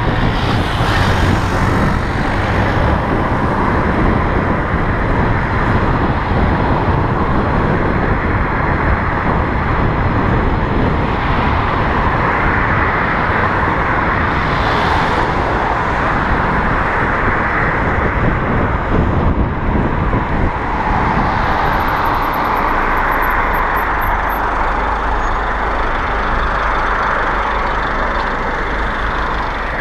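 Steady rush of wind and road noise while riding an electric bicycle along a road with traffic; the low rumble eases about two-thirds of the way through.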